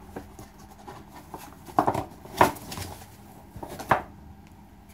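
Handling and opening the lid of a diecast model's presentation box: a few sharp knocks and scrapes, around two seconds in and again near the end.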